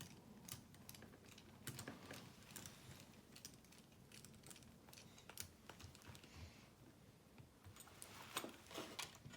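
Faint, irregular clicks and taps of small plastic and metal parts being handled as a wheel nut is fitted onto the wheel of a 1/24-scale RC crawler.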